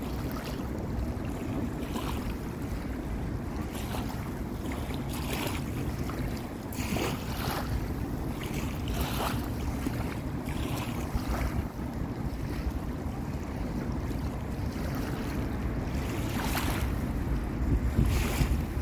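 Wind buffeting the microphone: a steady low rumble, with brief higher hissy gusts now and then.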